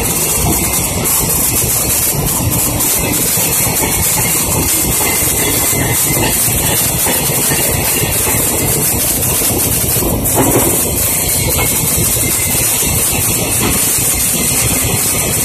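Stick-welding arc from a 1/8-inch 7018 electrode burning steadily on steel plate, a continuous crackling hiss, with a brief louder flare about ten seconds in, while filling the open-root joint in the flat position.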